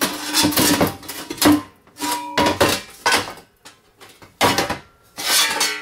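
Metal investment-casting flask handled on a workbench: a series of clanks and scrapes, some knocks leaving a short metallic ring.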